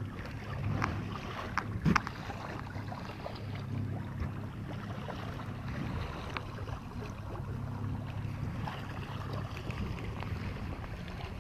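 Electric trolling motor on a fishing kayak running steadily under way, a low even hum over the wash of water along the hull, with some wind on the microphone. A few light knocks come about one and a half to two seconds in.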